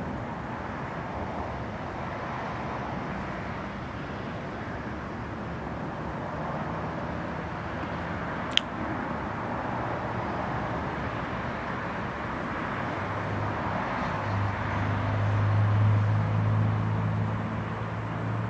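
Steady background traffic noise outdoors, with a vehicle's low engine hum growing louder about two-thirds of the way in and then easing off. A single sharp click sounds about halfway through.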